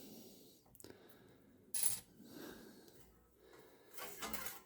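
Faint, short metallic clicks and scrapes from hand-handling the bobbin area of a Chinese shoe patcher sewing machine, with the sharpest one about two seconds in.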